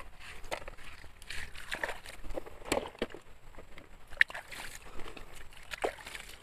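Small gravel stones clattering in irregular clicks and rattles as they are scraped by hand, with water sloshing and splashing over a plastic toy dump truck being rinsed.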